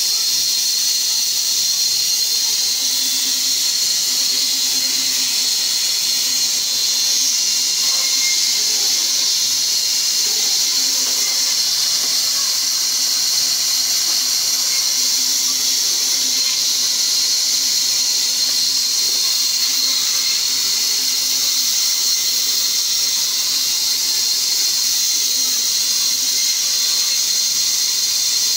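Large vertical band saw running and ripping logs into planks: a steady, high-pitched whine and hiss of the blade cutting wood.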